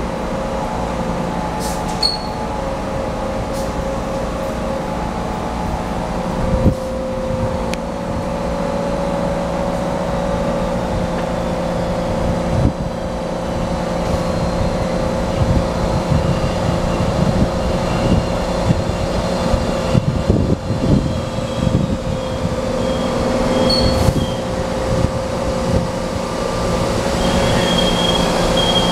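PATCO rapid-transit train running into the station, getting louder as it comes alongside the platform, with a steady hum throughout and a high squeal near the end as it brakes to a stop.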